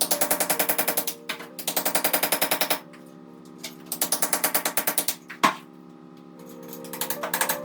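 A power tool hammering in rapid rattling bursts about a second long, three times, with a single sharp knock near the middle, over background music with steady tones.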